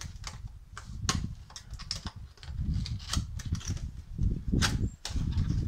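Cardboard box of a rear shock absorber being handled and opened: irregular clicks and rustles of the card, over low rumbling that comes and goes.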